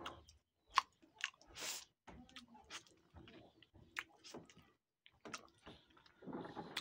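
A person eating a mango straight from the fruit with the mouth: wet lip smacks, sucking and chewing, with a few short hissing slurps.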